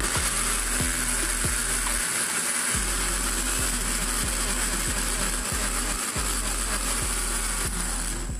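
Electric juicer motor running steadily for about eight seconds with a high whine, grinding grated onion and garlic in lemon juice to extract their juice; it switches on and cuts off abruptly.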